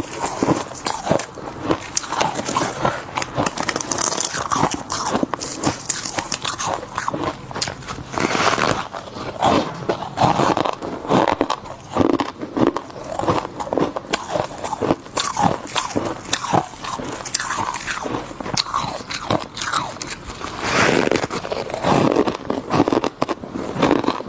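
Chunks of refrozen deep-freezer frost being bitten and chewed: a dense run of crisp, crackly crunches, bite after bite.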